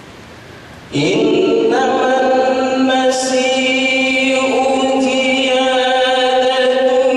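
Man's solo voice, unaccompanied, in a melodic Arabic recitation (tilawah) through a microphone, starting about a second in with long held, ornamented notes. Before it, a steady hiss.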